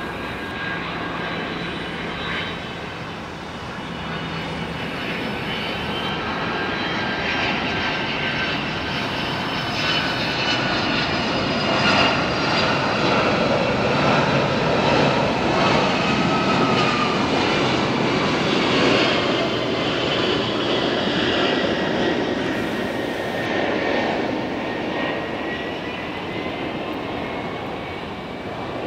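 Boeing 767 jet engines on landing approach, passing overhead: a steady rushing engine noise that builds to its loudest about halfway through and eases toward the end, with high whines that drift in pitch as the plane goes by.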